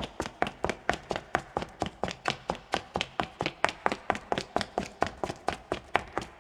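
High-heeled shoes walking on rough concrete: a steady, fast run of sharp heel clicks, about four a second.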